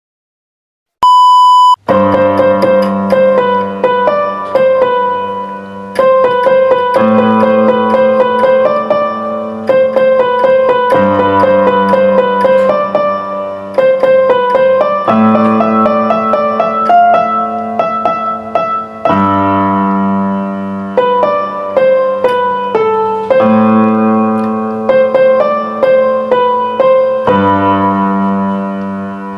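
Silence, then a short, loud electronic beep about a second in. After it, a piano plays a melody over low sustained chords, a little softer near the end.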